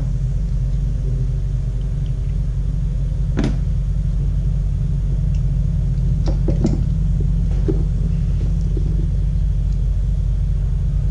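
A steady low machine hum, with a few short clicks and taps of carburetor parts being handled and pulled free: one sharp click about three and a half seconds in, then a small cluster of lighter clicks a few seconds later.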